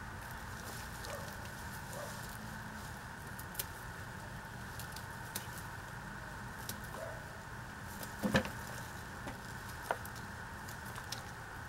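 Scattered light clicks and rustles of scissors snipping ginger stalks and of the rhizomes and soil being handled, the loudest a short cluster about eight seconds in, over a steady low background hum.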